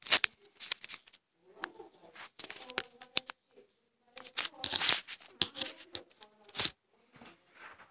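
Handling noise from a phone being jostled and moved about: irregular knocks, taps and rubbing against the microphone.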